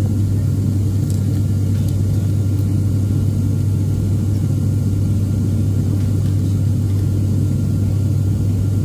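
ATR turboprop airliner's engines and propellers in flight, heard from inside the cabin as a steady low drone with a strong, even hum.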